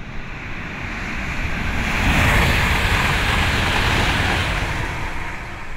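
A rushing whoosh with a low rumble under it. It swells to its loudest about two seconds in and then slowly fades, like something passing by.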